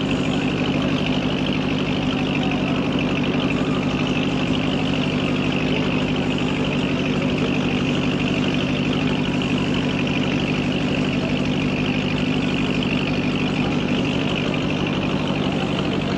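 Car engine and road noise while driving slowly, a steady hum and hiss that doesn't change.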